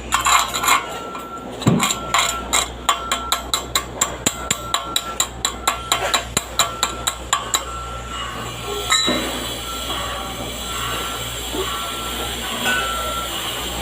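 A hammer striking metal in quick, even blows, about three a second, which stop after about seven and a half seconds. Then a steady hiss with crackling sets in, the sound of an electric arc welding, over a constant low hum.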